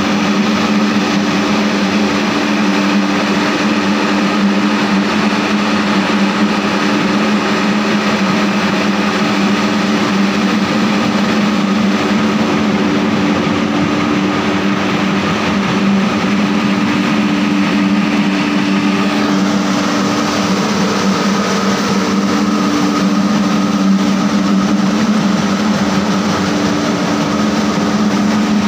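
SM-D50 anti-smog gun running: its large fan drives a water-mist plume, giving a steady low hum over a constant rushing hiss. The hiss turns brighter and higher about two-thirds of the way in.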